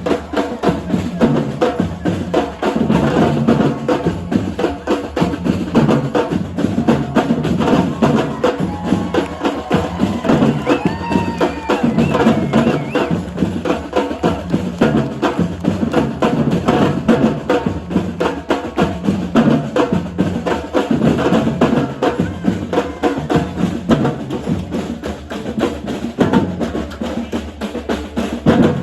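Brazilian-style street drum line playing together: deep bass drums, snares and sharp wooden-sounding clacks in a dense, steady groove.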